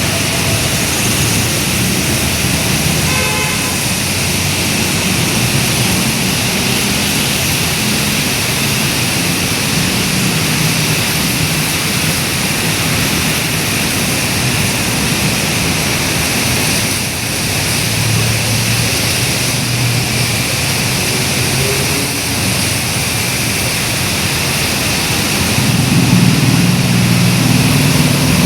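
Heavy rain falling steadily over road traffic, with vehicle engines passing. A car horn sounds briefly about three seconds in, and a vehicle's engine grows louder near the end.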